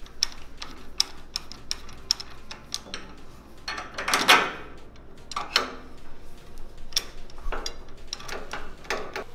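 Metal suspension parts clicking and clinking as a rod-end link and bracket plates are handled and test-fitted against a coilover, in many short sharp clicks. About four seconds in comes one longer, louder clank.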